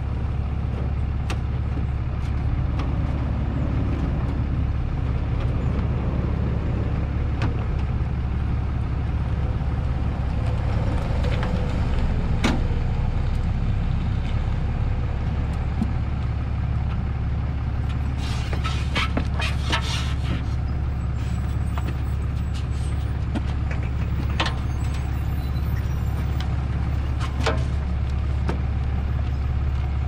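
Diesel truck engine idling steadily, with scattered sharp metallic clicks and clanks of tie-down straps being undone, bunched together about two-thirds of the way through.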